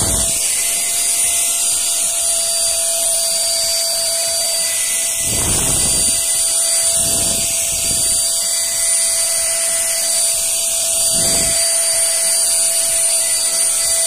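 Agratto Duo Praticci handheld vacuum cleaner running steadily with a high whine over a rush of air. Its narrow crevice nozzle sucks up hair from a tiled floor, and a few short rushes of lower noise come and go.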